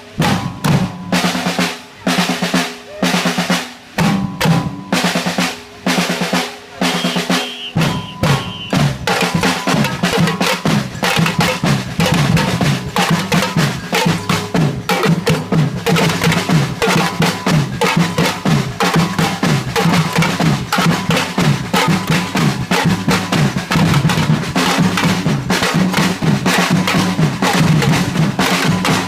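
Drumming music. Phrases of drum strokes with short gaps come first, and about eight seconds in it turns into a continuous fast beat.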